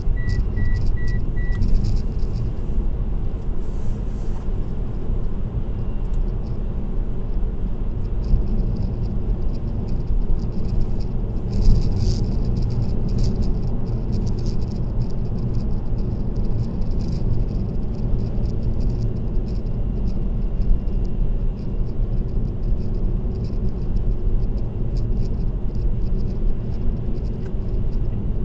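Steady low road and tyre noise of a car cruising on an expressway, picked up by a dashcam inside the car, with light intermittent rattling clicks that grow busier about halfway through. A quick run of five short high beeps sounds right at the start.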